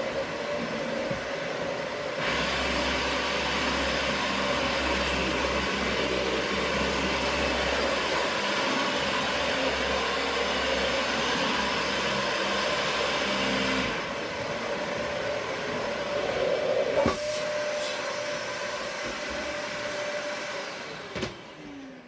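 Dyson Ball Animal 2 upright vacuum cleaner running over a hard floor, its motor whining at a steady pitch. The sound grows louder and rougher from about 2 to 14 seconds in, with a sharp click a few seconds later. Near the end it is switched off and the motor's pitch falls away as it winds down.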